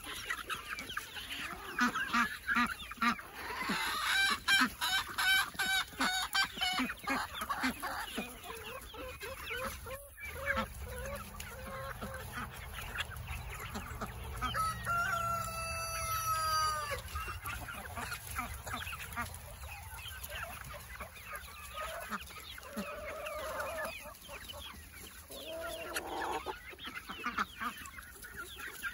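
A flock of chickens clucking and calling over a pile of vegetable scraps, with many short taps that fit beaks pecking at the food. About halfway through, one longer drawn-out call stands out above the clucking.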